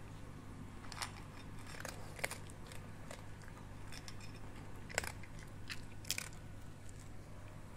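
Small dog crunching dry kibble, a handful of sharp, irregularly spaced crunches as it bites and chews, the loudest about five seconds in.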